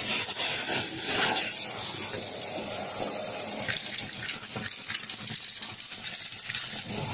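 Shark vacuum cleaner running with a steady suction hiss through its bare wand. From about four seconds in, as the nozzle reaches the pile, fluff, popcorn kernels and craft bits crackle and rattle as they are sucked up the tube.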